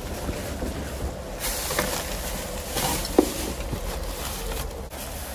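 Cardboard boxes and plastic packaging being shifted and rustled by hand, with small clicks and one sharp knock about three seconds in, over a steady low rumble.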